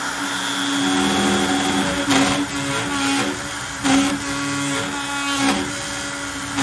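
Onefinity CNC router running a 3/4-inch bowl bit through black walnut at a far too aggressive 0.3-inch depth in one pass: a loud, steady spindle tone broken by rough surges about two, four and five and a half seconds in as the overloaded cut vibrates the whole machine. It is not a good sound: the sign of taking far too deep a pass.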